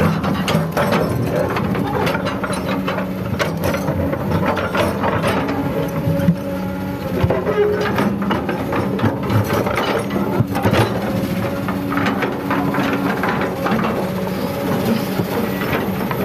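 Kobelco crawler excavator's diesel engine running steadily under load, with frequent clanks, knocks and scraping as the steel bucket digs into rocky soil.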